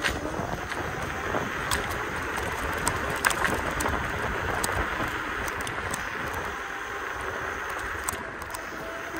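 Riding noise from a Kaabo Mantis Pro electric scooter rolling along a street: a steady rush of wind and tyre noise with small clicks and rattles scattered through it.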